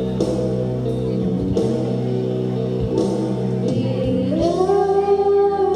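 Instrumental backing music playing steadily, with a woman's singing voice coming in about four seconds in on one long held note.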